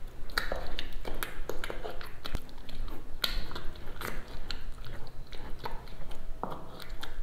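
Spoon stirring and pressing mashed roasted-eggplant pickle in a bowl: irregular clicks of the spoon against the bowl mixed with soft wet squishing.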